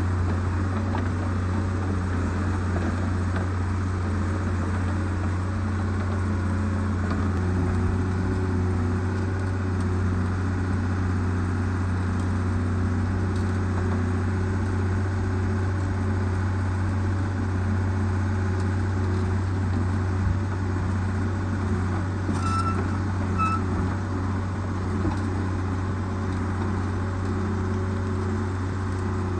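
Heavy diesel engine idling steadily with a deep, even hum. Two short high beeps sound about two-thirds of the way through.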